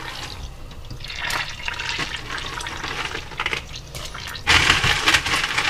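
Live crayfish being tipped into a stockpot of boiling water: bubbling and splashing water, with a loud rush of splashing about four and a half seconds in.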